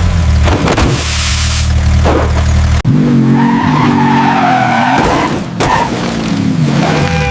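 Car sound effects: an engine running hard, then tires skidding and squealing. The squeal wavers through the second half. The engine drone breaks off abruptly about three seconds in.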